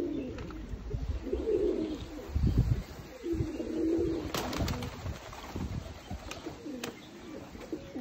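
Domestic pigeons cooing, several low coos one after another, with a loud low thud about two and a half seconds in and a few short clicks near the middle.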